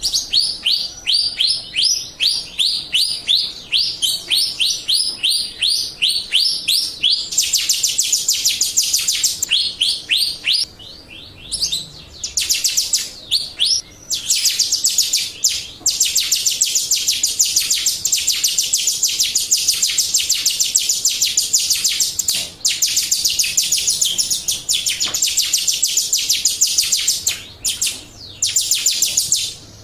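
Jalak Rio starling singing. It starts with a run of falling whistled notes, about three a second, then from about seven seconds in breaks into a fast, dense chattering trill with a few short pauses. This is a lure recording meant to make other Jalak Rio answer and sing.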